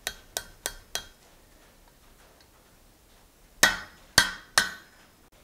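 Hand hammer striking a red-hot steel bar over an anvil horn, bending it into a hook: four light, quick taps in the first second, a pause, then three heavier ringing blows a little after halfway.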